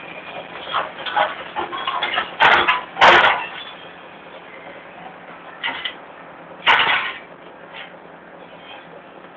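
Excavator's diesel engine running steadily at work, with a cluster of loud knocks and thumps about two to three seconds in and another near seven seconds.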